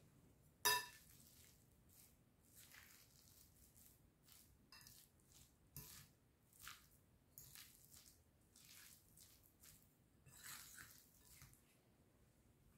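A metal spoon stirring chopped chicken, vegetables and olives in a glass bowl: a sharp clink of the spoon against the glass about a second in, then a run of faint, soft scrapes and squelches of the mixing.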